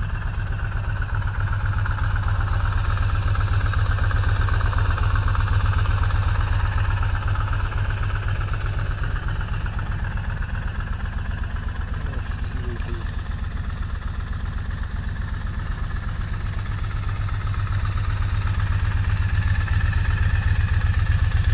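Kawasaki VN1600 Classic's V-twin engine idling steadily with an even, pulsing beat, growing a little louder near the end.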